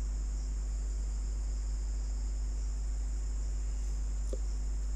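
Steady electrical hum with a faint, thin high-pitched whine: background noise of the recording setup, with no other sound.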